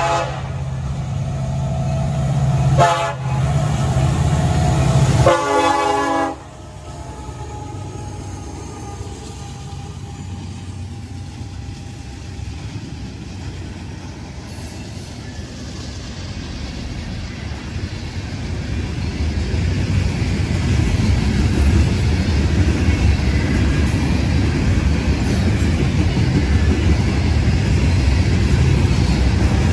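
Diesel locomotive horn sounding several tones together over the engine's steady hum: a long blast, a brief break about three seconds in, and a last short blast that cuts off about six seconds in. A train's rumble follows and builds steadily louder through the second half.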